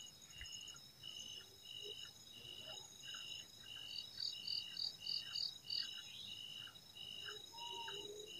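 Night chorus of forest insects: several steady high trills, with one chirping in regular pulses about twice a second. A second, faster pulsing call joins for about two seconds in the middle.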